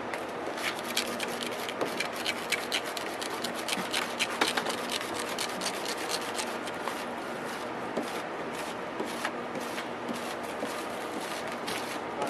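Razor blade scraping heavy paint overspray off a truck's painted body in quick, short strokes, several a second, thinning out in the second half.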